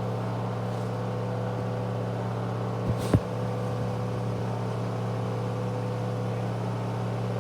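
Candy washing machine's final spin at about 1000 rpm: a steady drum-and-motor hum with a constant tone. A brief double knock about three seconds in.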